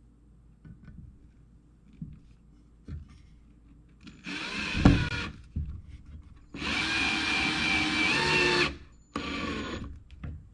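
Power drill running in three bursts, about a second, two seconds and under a second long, its motor whine shifting in pitch as it pre-drills holes in the wooden birdhouse pieces. Faint knocks and clicks of handling come before.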